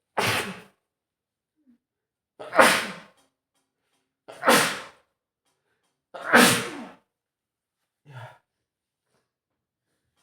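A man sneezing four times in a row, about two seconds apart, each a sharp, loud burst: sneezes from a head cold. A brief, much quieter sound follows about two seconds after the last sneeze.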